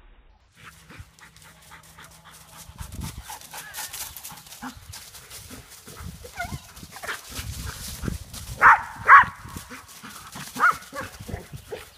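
A white shepherd and a Belgian Malinois running and tussling over dry fallen leaves, the leaves crunching and rustling under their feet. From about six seconds in the dogs yip and bark in short bursts, the loudest two close together near nine seconds.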